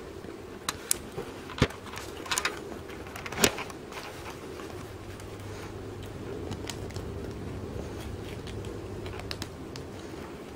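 Plastic LEGO parts clicking and rattling as a LEGO rifle magazine is handled and loaded with LEGO ammunition pieces: a handful of sharp clicks in the first few seconds, the loudest about three and a half seconds in, then fainter clicks near the end.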